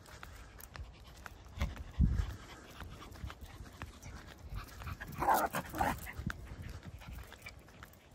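Dog panting while walking, over a run of footsteps and light clicks on a tarmac path. A couple of dull thumps come near two seconds, and a louder burst of panting comes about five seconds in.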